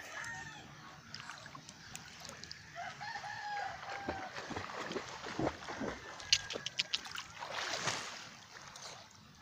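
A rooster crows once, about two and a half seconds in, as one drawn-out call. About six to eight seconds in, water splashes with a few sharp clicks.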